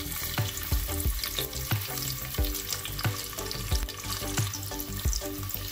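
Sliced onions sizzling as they fry in hot oil in an aluminium pot, over background music with a steady beat.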